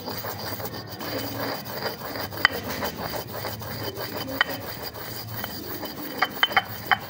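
Stone pestle grinding black cardamom seeds in a stone mortar: a continuous gritty rubbing, with a few sharp clicks, several close together near the end.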